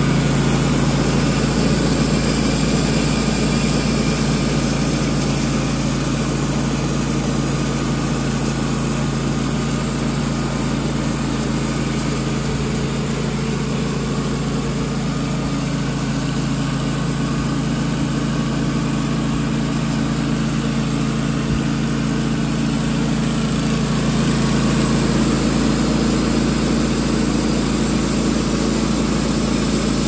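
Wood-Mizer LT15 Wide portable band sawmill running steadily, its engine under load as the band blade saws through a cypress cant.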